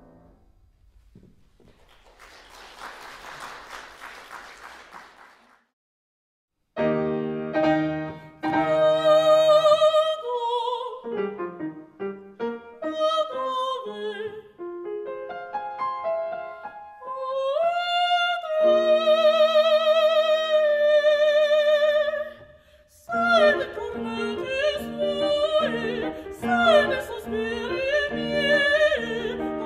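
A piano chord fades, followed by about three seconds of applause. After a short break a piano introduction begins, and a classical singer enters with strong vibrato about two-thirds of the way through, singing an aria over the piano.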